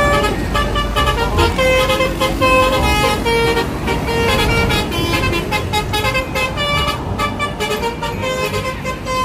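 Indonesian 'telolet' bus horn sounding a quick melody of short, changing pitched honks, over a steady low rumble.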